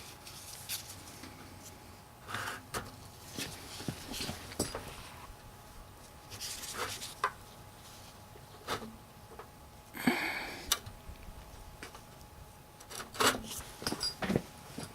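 Hand tools and metal parts of a turbo pedestal being handled and worked: scattered short clicks, scrapes and rubs, with louder clusters about ten and thirteen seconds in.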